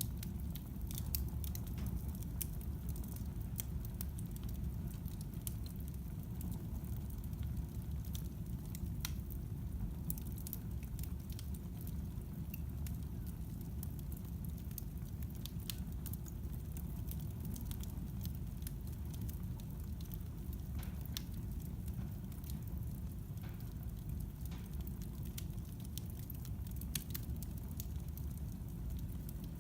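Fire burning in a fireplace: irregular sharp crackles and pops over a steady low rumble.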